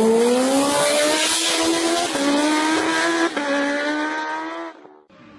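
High-revving engine accelerating hard, its pitch climbing and dropping back at each of two upshifts, then fading away just before the end.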